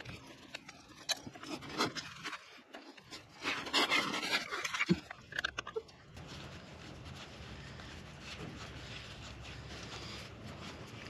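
A Phillips screwdriver working the small screws of a boat's Flow-Rite drain plug housing: scattered clicks and scrapes of the tool on the screws, with a louder rustling, scraping stretch a few seconds in. From about six seconds in, only a steady low hum remains.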